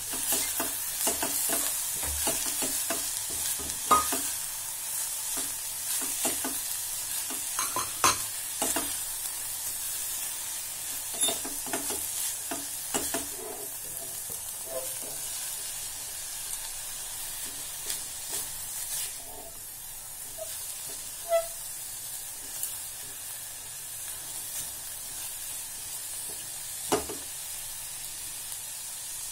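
Chopped snake gourd and onions sizzling in a stainless steel pot while a spatula stirs them, with frequent scrapes and taps against the pot. The sizzle eases a little about two-thirds of the way through.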